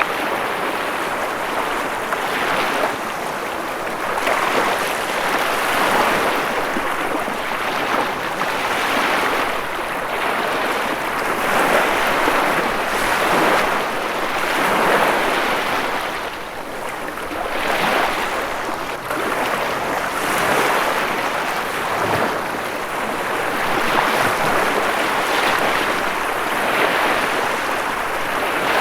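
Ocean surf: a continuous rushing of breaking waves that swells and eases every few seconds.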